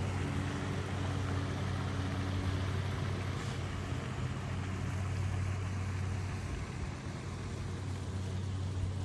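A steady low motor hum over a wash of water noise, weakening a little near the end.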